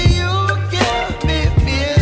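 Background pop song with a steady drum beat, bass and a singing voice.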